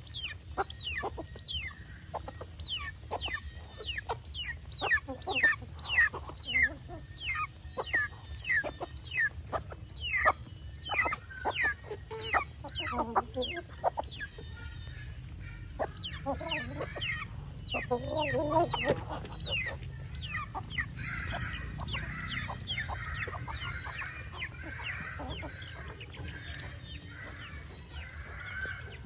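Mixed flock of domestic ducks, geese and chickens calling while feeding: a quick run of high, falling peeps, several a second, through the first half, lower calls about two-thirds of the way in, then softer, hoarser calling toward the end.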